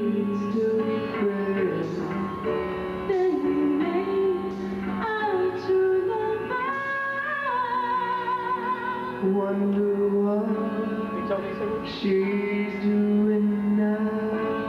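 A woman and a man singing a duet into microphones over musical accompaniment, the woman's voice the more prominent, with held notes sung with vibrato.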